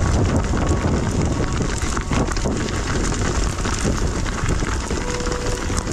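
Wind buffeting the microphone during a ride through a snowstorm: a steady, rumbling rush with faint ride noise underneath.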